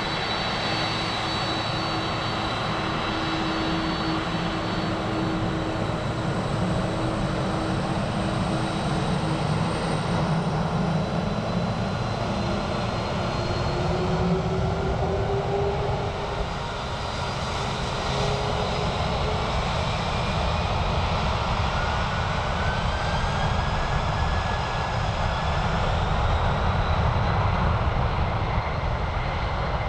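Boeing 767-200ER's General Electric CF6 turbofan engines running at high power as the jet moves down the runway for takeoff. The steady noise carries several whining tones that slowly rise in pitch as the engines spool up.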